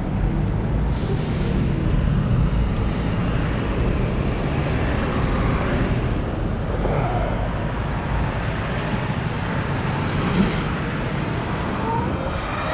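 Steady rush of wind over the microphone and tyre noise from a Sur Ron electric dirt bike riding along a city street.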